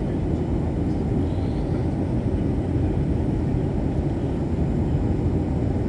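Steady cabin noise inside a Boeing 737-800: the even rumble of its CFM56 engines and rushing air, with no distinct knocks or changes.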